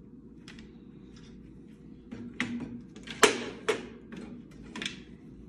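A few short, sharp clicks and knocks of hard objects being handled, the loudest two close together about three seconds in.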